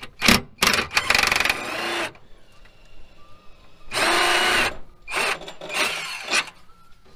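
20V cordless impact driver with a socket spinning on a rear suspension arm bolt, run in several trigger bursts: a long run of over a second about a second in, another about four seconds in, and short pulls near the end.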